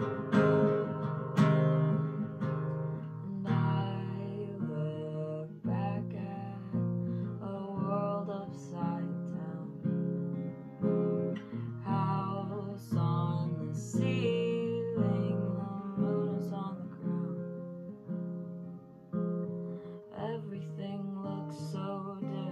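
Acoustic guitar strummed in a steady rhythm, about one strong strum a second, with chords ringing between strokes. A voice sings wordlessly at times over it.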